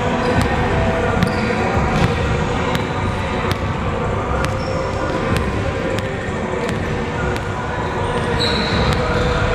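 Basketballs bouncing on a hardwood gym floor: irregular sharp bounces echoing in a large gym, with a brief high sneaker squeak near the end and faint voices in the background.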